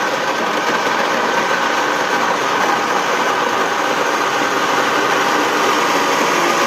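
Electric countertop blender with a plastic jar running steadily at full speed, blending fruit with water into pulp.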